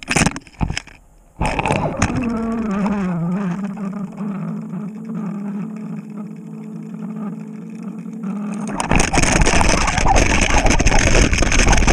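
A few knocks, then a boat motor humming at a steady pitch while trolling, heard from underwater through the camera housing. About nine seconds in the hum gives way to a louder, rough rushing noise.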